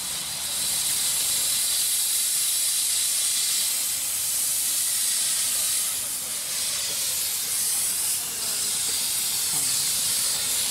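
Steam hissing from a miniature live-steam locomotive: a steady, loud, high hiss that swells up about half a second in.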